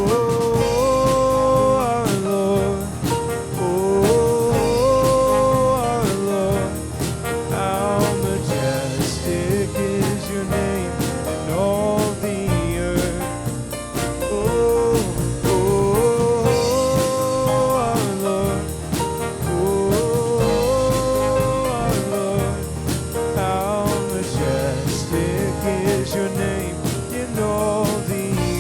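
Worship band playing an instrumental passage between sung verses: a lead melody line with bends over bass and a steady drum beat.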